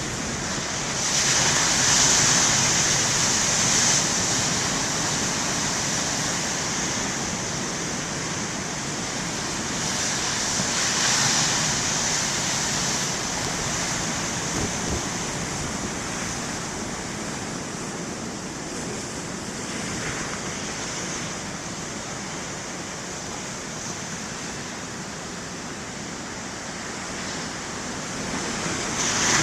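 Heavy ocean surf breaking, a constant rush of water that swells louder a few times as big breakers crash in, about a second in, around ten seconds in, and again near the end.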